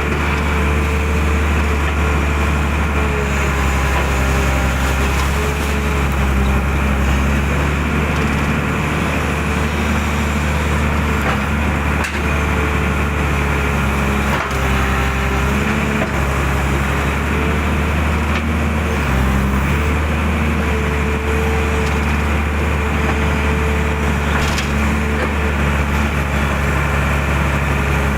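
Excavator's diesel engine running steadily under working load, with a hydraulic whine that wavers in pitch as the arm moves, and a few sharp knocks.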